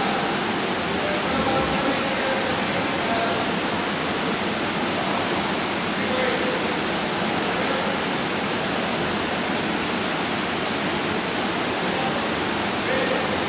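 Steady rushing ambience of an indoor competition swimming pool hall, with no distinct events. Faint distant voices come through now and then.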